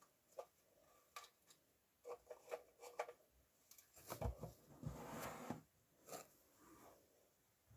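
Faint handling noises of a plastic and flocked toy figure: scattered small clicks and taps, then cloth rustling and a soft knock about four seconds in as the figure is settled onto a wooden tabletop.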